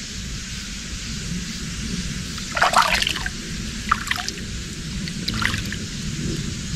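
Water trickling and sloshing in a water-filled inflatable boat, with a few short splashes about three, four and five seconds in.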